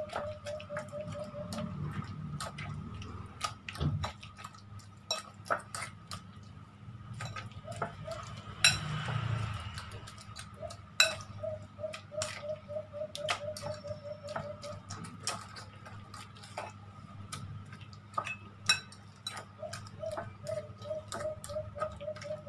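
A metal fork mashing soft boiled eggplant and okra in a glass bowl, with many irregular clinks and taps of the fork against the glass. A faint run of quick, even ticks comes and goes in the background.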